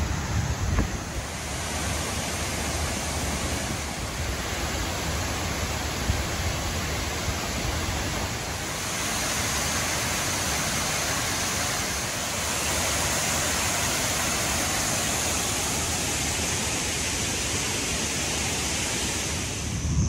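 Oshinkoshin Falls, a broad waterfall pouring down a rock face, rushing steadily; the rush grows a little louder about nine seconds in.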